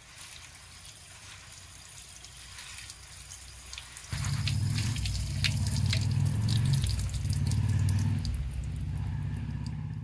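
Wild leafy greens being washed in water: faint splashing and dripping, then about four seconds in a much louder, steady rush of running water with splashes over it, which stops abruptly at the end.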